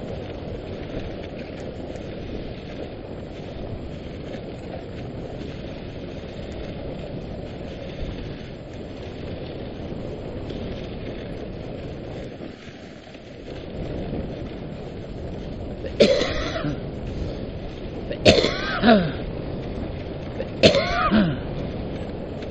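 Dog sled gliding along a packed snow trail: a steady rushing of the runners on snow and wind on the microphone, with a brief lull just past the middle. Near the end come three short, harsh throat-clearing sounds close to the microphone, about two and a half seconds apart, louder than the rushing.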